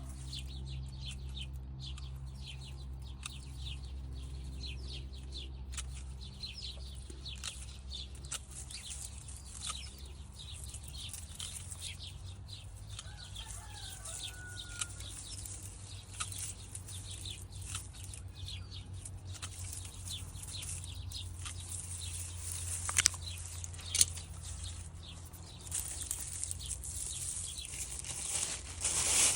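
Mint plants rustling and crackling as they are handled and cut, a dense run of irregular crisp clicks over a steady low hum, with a short chirp partway through and two sharper snaps near the end.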